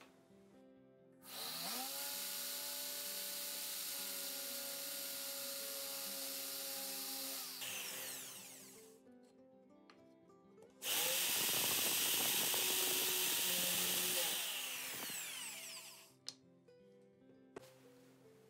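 Electric drill boring a hole into a block of pallet wood, in two runs of several seconds each. Each run spins up with a rising whine and winds down at the end, and the second run is louder. Background music plays under it.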